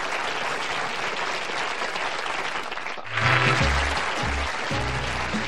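A studio audience applauding. About three seconds in, the sound cuts to band music with a bass line, with applause still under it.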